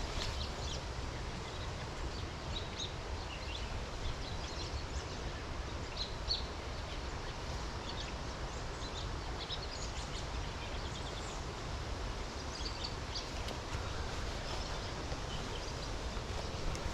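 Steady forest ambience of soft rain and wind in the trees, with a low rumble of wind on the microphone. Many short, high bird chirps are scattered throughout.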